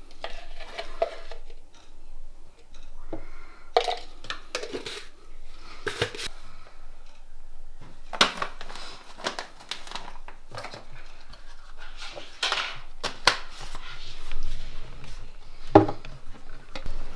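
Plastic supplement tubs, a powder pouch and a plastic water bottle being opened and handled: lids twisting and clicking, knocks of plastic on the counter and rustling of the pouch, with one sharper knock near the end.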